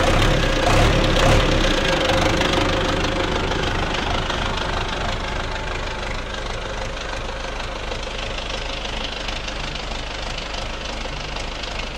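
Belarus MTZ-82.1 tractor's four-cylinder diesel engine idling steadily, heard close to the engine bay, growing a little fainter toward the end.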